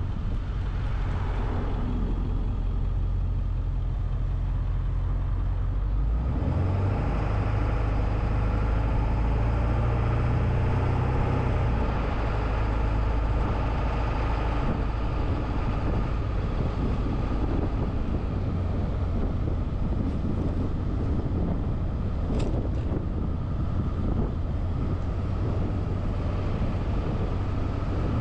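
A car driving: steady engine rumble and road noise, with the engine note rising about six seconds in.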